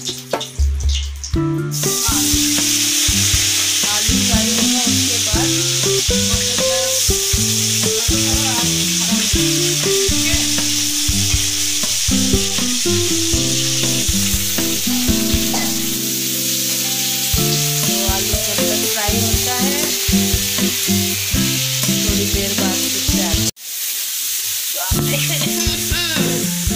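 Potato wedges frying in hot oil in a kadai: a loud, steady sizzle that starts suddenly about two seconds in as they go into the oil, with a brief break near the end before the sizzle resumes as they are stirred. Soft background music runs underneath.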